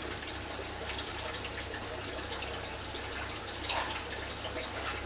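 Water bubbling and trickling in a bottle of brine shrimp, many small irregular drips and pops, over a steady low hum.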